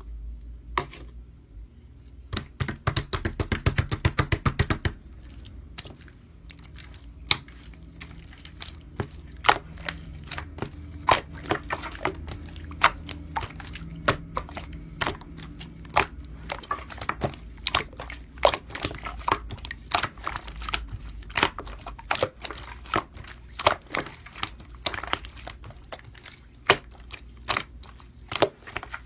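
Slime being pressed, poked and stretched by hand, giving irregular sticky pops and clicks, with a quick run of pops about three seconds in.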